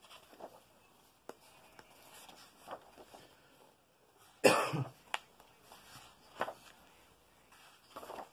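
Pages of a paperback colouring book being turned, soft paper swishes every second or two, with one loud cough about four and a half seconds in.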